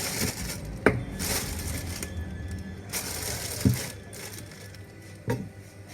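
Knife cutting chicken wings apart at the joints on a cutting board: crunching cuts, and three sharp chops of the blade against the board.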